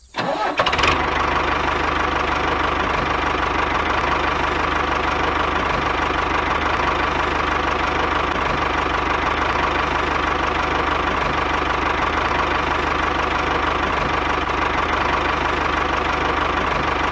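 A miniature DIY model tractor runs steadily with an even, fast knocking beat, starting about half a second in as it drives along pulling its trailer.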